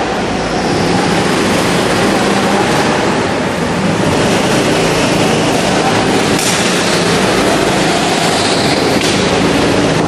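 Several go-kart engines running as the karts lap an indoor track, the engine note wavering up and down, with the sound filling the enclosed hall. A couple of brief high hisses come about six and nine seconds in.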